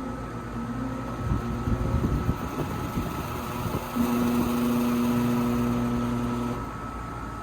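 1996 Bryant 4-ton air conditioner condensing unit humming, its GE condenser fan motor short-cycling: a louder steady hum comes on about four seconds in and cuts off some two and a half seconds later.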